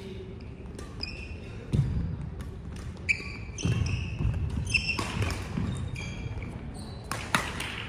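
A badminton singles rally: sharp racket strikes on the shuttlecock and footfalls on the court floor, mixed with short high shoe squeaks as the players move.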